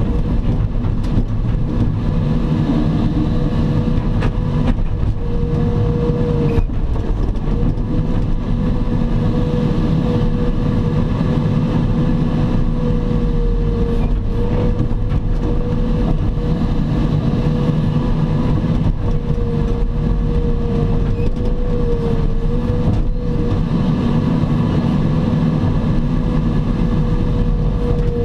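Diesel engine of a Caterpillar 621F wheel tractor scraper running steadily under work, a heavy low rumble with a constant high whine over it.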